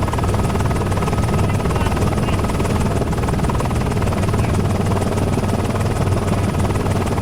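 Steady helicopter rotor and engine noise, picked up aboard a news helicopter.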